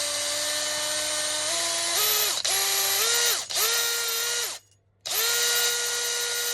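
Small high-speed rotary tool fitted with a carving bit, running with a steady high whine whose pitch steps up and down, deburring a 12 mm eye hole in wood. It stops and restarts several times, with the longest pause, about half a second, near the end.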